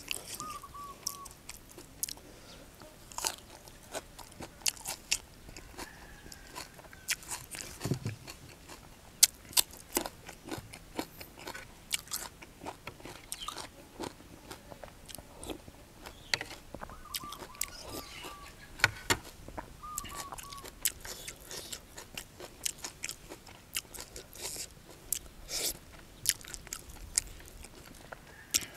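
Close-miked chewing and crunching of food, fresh kradon leaves with fish laab and fish, with many irregular sharp mouth clicks and smacks.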